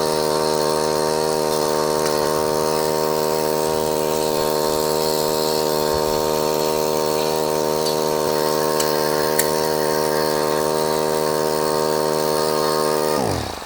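Water pump feeding a sluice box, running steadily at a constant pitch, then shut off near the end, its pitch falling as it winds down.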